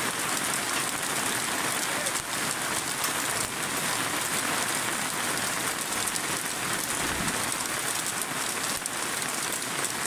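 Heavy rain mixed with hail, a dense steady patter of many small impacts on a camper's awning overhead and on the gravel and grass, with water pouring off the awning's edge. A brief low thump comes about seven seconds in.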